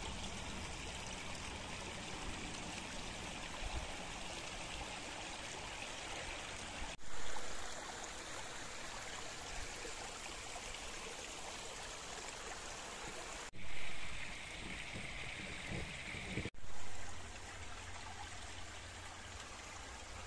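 Stream flowing and splashing over rocks in a narrow gorge, a steady watery hiss. It changes abruptly three times and swells briefly after each change.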